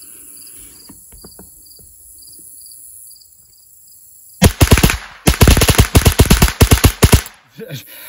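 Ruger 10/22 .22 LR rifle fitted with a Franklin Armory BFS III binary trigger, firing a very rapid string of shots that empties a 25-round magazine in about three seconds. The shots start about four and a half seconds in, with one short break partway through.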